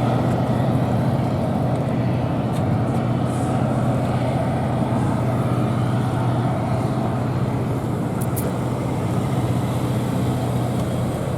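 Pilot boat's engine idling steadily with a constant low hum.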